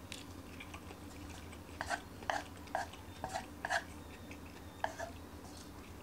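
Wooden chopsticks clicking and scraping against a nonstick frying pan while picking up stir-fry: a quick cluster of about six sharp clicks starting about two seconds in, and one more near the end, over a faint low hum.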